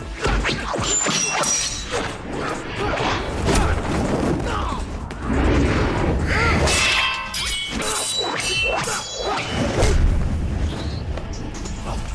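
Film fight-scene sound effects: a rapid run of punch and kick impacts with whooshes of swung limbs and bodies hitting the floor, mixed with short grunts from the fighters.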